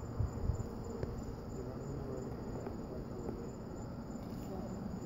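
Crickets chirping in a steady, high-pitched chorus. A couple of low thumps come in the first half-second.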